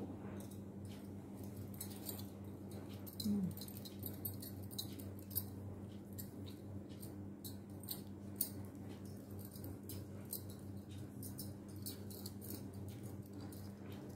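Glass bangles clinking lightly in many small clicks and fabric rustling as hands smooth out a blouse, over a steady low hum. A short falling squeak about three seconds in is the loudest sound.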